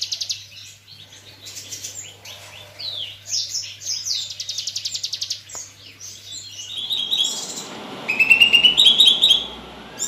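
Ciblek gunung, a small prinia, calling: a fast, buzzy trill of repeated notes, then a run of varied chirps, with louder stepped chirps in the last few seconds.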